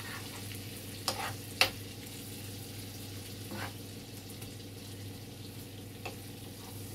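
Chicken sizzling in a frying pan in a thin flour-and-water sauce that is boiling down, lifting the browned bits off the pan, while a utensil stirs and scrapes. It knocks sharply against the pan a few times, loudest about one and a half seconds in.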